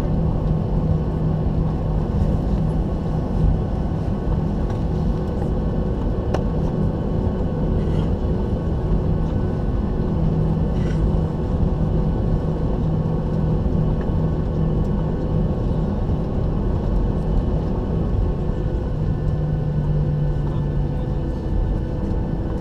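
Steady cabin noise of a Boeing 737-800 heard from inside the passenger cabin: the CFM56 turbofans running at low power with a constant low hum over a broad rumble, while the aircraft prepares for departure.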